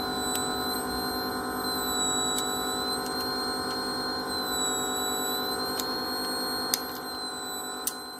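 Steady electrical hum made of several pitches, with a thin high whine that wavers slightly over it. A few faint clicks, two sharper ones near the end.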